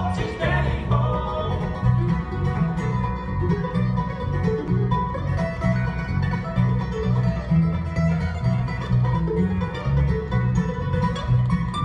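Live bluegrass band playing an instrumental passage: banjo and mandolin picking over strummed acoustic guitars, with a steady, rhythmic bass line underneath.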